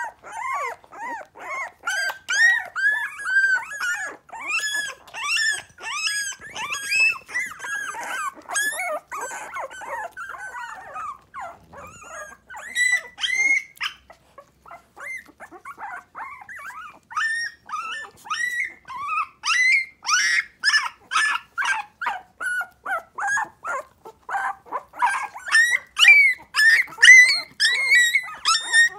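Three-week-old miniature pinscher puppies whining and yipping in quick, high-pitched squeaks, several calling over one another, with a short lull a little past halfway.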